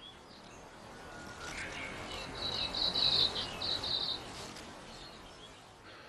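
Quiet forest ambience with a high, pulsing chirp lasting about two seconds around the middle.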